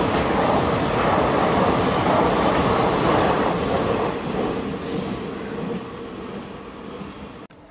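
Indian Railways express passenger coaches rolling past on the rails, their wheels rumbling and clattering over the track. The noise starts to fade about four seconds in as the train moves away, and drops abruptly to a low background near the end.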